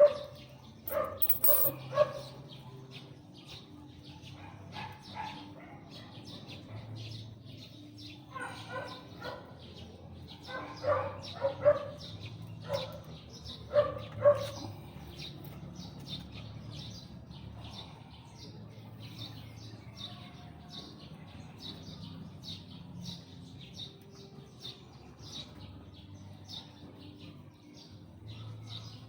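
Dog barking in short bouts, about a second in and again from around nine to fifteen seconds in, over continual faint high chirping.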